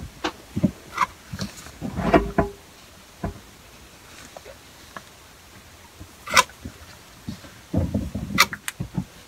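Irregular scuffs, rustles and light knocks of a sleeve and rubber-gloved hands brushing against the phone close to the microphone. There is a bigger cluster about two seconds in, a sharp crackle about six seconds in, and a quick run of knocks near the end.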